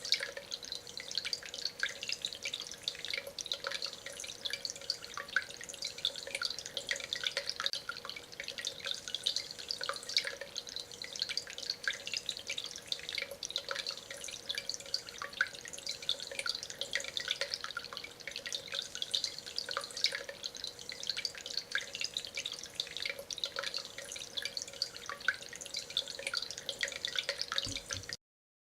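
Water trickling and dripping steadily over the concrete and stone of a tabletop water fountain, a dense run of small splashes over a faint steady hum. It cuts off abruptly near the end.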